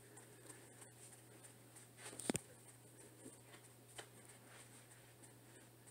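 Near silence: quiet room tone with a few faint soft clicks and rustles, one a little louder about two seconds in.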